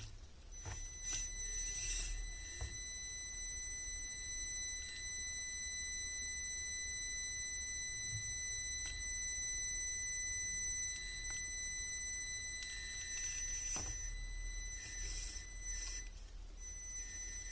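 Micro 1/43 RC crawler's electric drive giving a steady high-pitched whine while crawling slowly over rock, with scraping and rattling near the start and again near the end.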